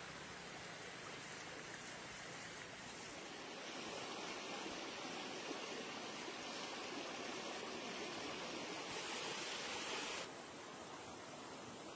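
Water flowing in a rocky stream: a steady rushing hiss that drops abruptly quieter about ten seconds in.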